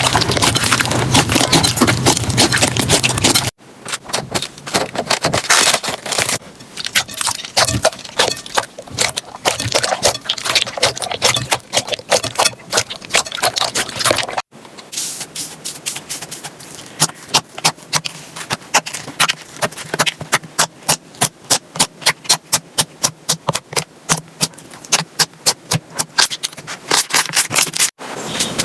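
Slime being played with, making crackling and popping clicks, in three short segments separated by abrupt cuts. The last segment has a steady run of sharp pops, about three a second.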